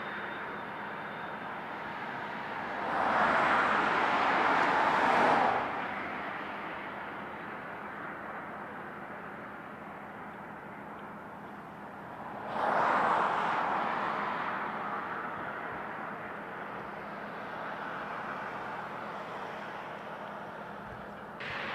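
Motorway traffic: a steady road hum, with two vehicles passing close by, the first about three seconds in and the second about twelve seconds in.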